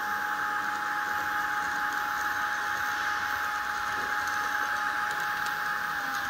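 Minitrix N-scale model of an SNCF BB 9200 electric locomotive running with its sound decoder on, played through the model's small loudspeaker. It gives a steady electric whine over a hiss at constant speed.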